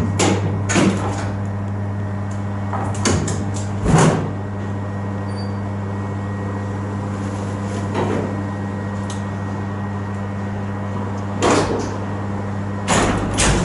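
Steady low electrical hum in a church belfry, with single knocks and clunks a few seconds apart. Near the end a louder clatter begins.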